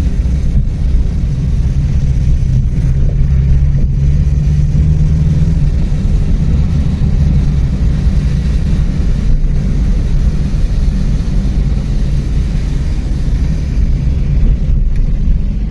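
Steady low rumble of a car driving on a wet road, heard from inside the cabin: engine and tyre noise.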